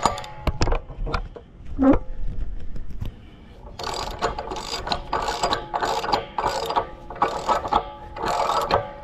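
Ratchet wrench turning a 1-7/16-inch socket, clicking in short repeated swings. A few separate clicks come first, then from about four seconds in a steady run of about two ratcheting strokes a second.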